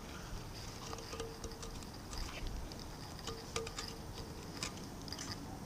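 Faint, scattered light clicks and scrapes from a rusty, vinegar-soaked cast iron casting being handled with rubber-gloved hands.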